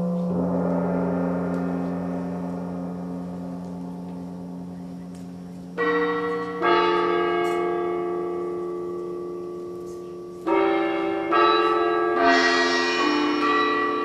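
Pitched Asian gongs struck one at a time, about five strokes in a slow irregular sequence, each ringing a chord of clear tones that fades slowly. A steady low hum lies beneath.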